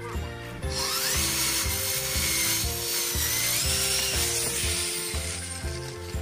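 Electric hand drill boring a hole into a wooden batten with a twist bit. Its motor whine rises as it starts about a second in and cuts off near the end, over background music with a steady beat.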